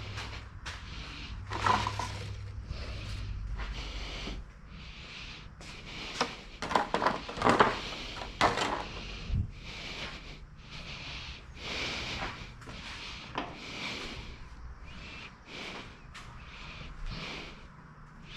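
Repeated short scraping or rubbing strokes, about one a second, with a cluster of clinks and knocks in the middle, over a low hum.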